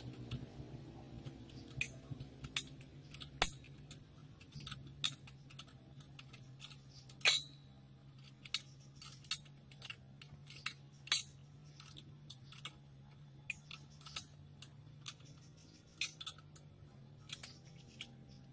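Irregular metallic clicks and clinks from a homemade welded steel chainsaw-mill frame being handled and adjusted around a chainsaw, with one louder clank about seven seconds in. A steady low hum runs underneath.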